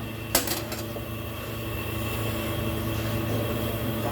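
Steady low mechanical hum holding several steady tones, with a sharp click about a third of a second in.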